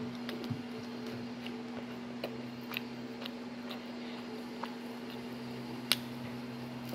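A person chewing fishballs close to the microphone, with scattered short wet mouth clicks and smacks and one sharper click a little before six seconds, over a steady low hum.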